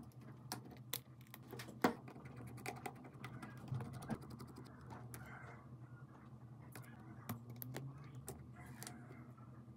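Irregular small clicks and taps of hand tools and phone parts being handled during a smartphone repair, over a low steady hum.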